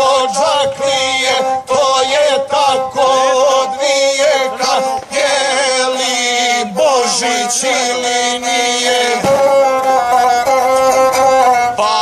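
Gusle, the single-string bowed folk fiddle of Serbian and Montenegrin epic singing, playing a melody of held notes with quick wavering ornaments. This is an instrumental passage between sung verses of an epic song.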